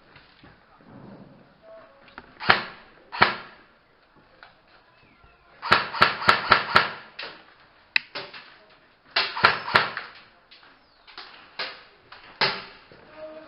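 Airsoft guns firing: sharp single shots, then quick strings of four or five shots in rapid succession, with more single shots near the end.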